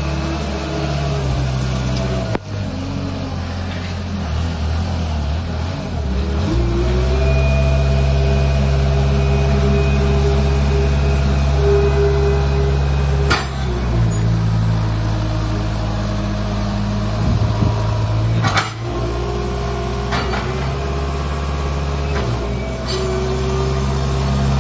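Manitou MT625 telehandler's diesel engine running, revving up about a third of the way in and holding there while the boom is worked, with a higher steady tone that comes and goes over the engine. A few short sharp knocks come at intervals.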